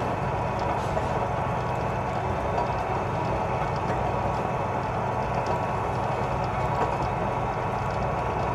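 Seoul SUC 35W rebar cutter running without a load: its electric motor, flywheel and gear train turning and the cutting blade cycling in the empty jaw, a steady mechanical hum.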